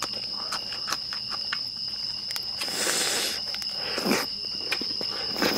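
Crickets trilling steadily, with close-up chewing of a mouthful of lettuce wrap: short wet clicks and crunches, and a louder hiss-like burst about three seconds in.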